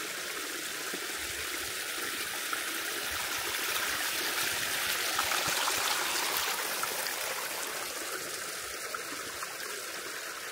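Small rocky fell stream running and trickling over stones, a steady rush of water that grows a little louder midway.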